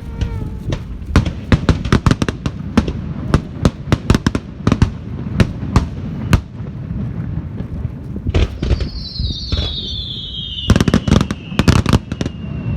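Fireworks display: a steady run of sharp bangs and crackles over a low rumble. About eight seconds in, a long whistle slides down in pitch, and a rapid flurry of bangs comes near the end.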